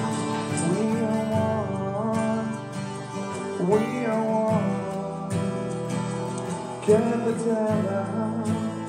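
Acoustic guitar strummed in time with a recorded band track; a male lead vocal comes in near the end.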